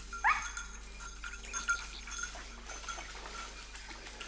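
Small bell on a hunting dog's collar tinkling irregularly as the dog moves through cover. A short, sharply rising cry about a third of a second in is the loudest sound.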